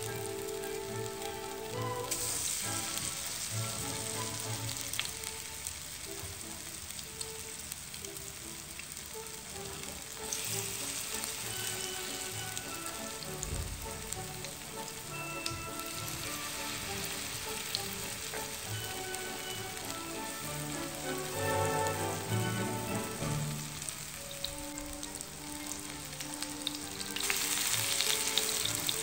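Zucchini and potato fritters sizzling as they fry in a pan. The sizzle swells about two seconds in, again about ten seconds in, and near the end.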